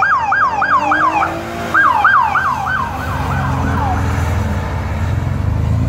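Emergency-vehicle siren in a fast yelp, each cry falling in pitch, about three a second, fading out about four seconds in. A low vehicle engine rumble builds beneath it in the second half.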